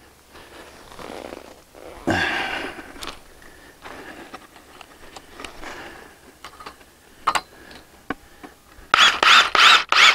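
Cordless drill driving a screw in a quick run of short trigger bursts near the end, after several seconds of scattered knocks and handling noises, with a louder scrape about two seconds in.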